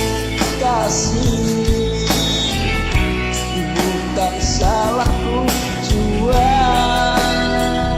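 Instrumental break of a karaoke backing track: a lead melody that bends and slides in pitch, over a full band with a steady drum beat.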